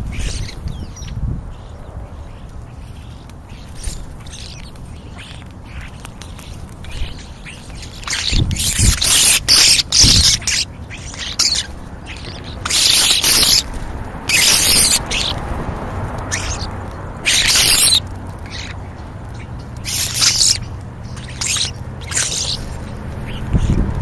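A flock of European starlings calling at close range while feeding, in repeated bursts of harsh, hissing calls that are busiest in the middle of the stretch.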